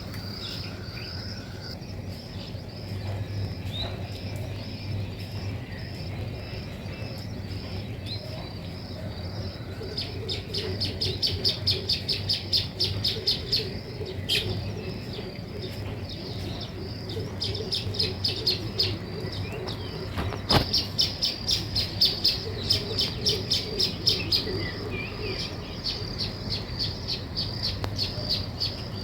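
Small songbirds chirping. A steady, evenly pulsed high trill runs through the opening, then from about a third of the way in come bursts of fast, sharp chirps in quick runs.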